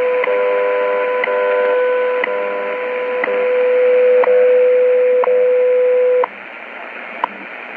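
WWV time-signal broadcast on 5000 kHz, heard through a Tecsun PL-600 shortwave radio's speaker: a steady mid-pitched tone with a short tick every second, over shortwave hiss. About six seconds in the tone stops suddenly, leaving only the once-a-second ticks in the static.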